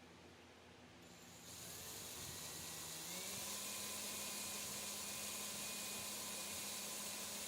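Electric drill starting up about a second and a half in. Its motor speeds up over a second or so, then runs steadily with a thin whine.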